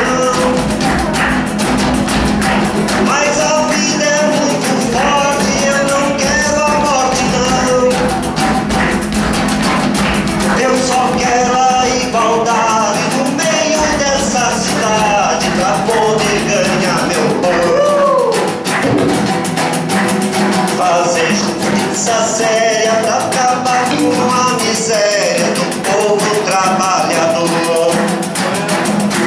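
Live acoustic Brazilian folk music between sung verses: acoustic guitar strumming and a pandeiro (jingled frame drum) keeping a steady rhythm, with a lead melody that slides up and down in pitch over them.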